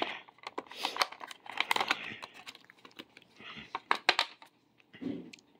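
Clear glass lid lifted off a glass bowl of grapes: a scatter of sharp clicks and knocks of glass on glass and on the tray, loudest about four seconds in, with light rustling between them. A short low thud comes just after five seconds.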